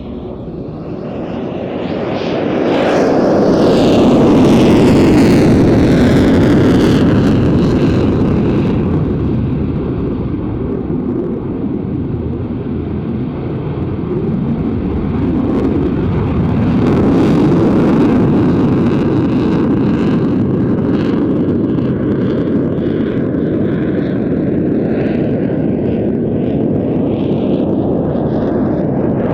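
Eurofighter Typhoon jet noise from its twin EJ200 turbofans as the fighter flies a display pass. The sound swells to its loudest about four to seven seconds in with a sweeping whoosh, eases off, and builds again around seventeen seconds in as the jet comes round.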